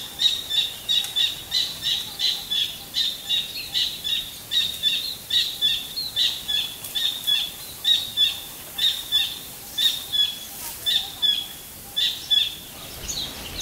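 A bird calling over and over in short, high notes, about two to three a second, stopping near the end.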